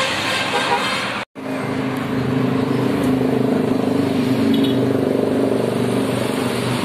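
Road traffic: the broad rush of passing vehicles, broken by a brief dropout about a second in, then a motor vehicle engine running steadily.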